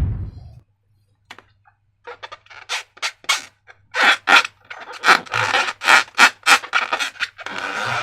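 Slime being squeezed and worked by hand, giving a quick run of short crackling squishes that starts about two seconds in and grows denser.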